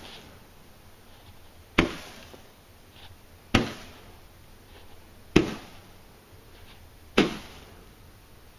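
Standard Fireworks 'Wheat Harvest' small Roman candle firing its shots: four sharp pops about two seconds apart, each dying away quickly.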